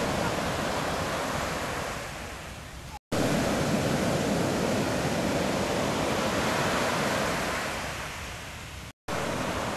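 Ocean surf: a steady wash of breaking waves. It cuts off sharply about three seconds in and again near the end, and each stretch starts loud and then dies down.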